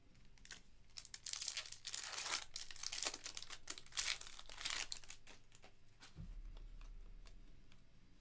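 Foil wrapper of a Panini Prizm basketball card pack being torn open and crinkled, a run of rustling bursts that dies down about five seconds in.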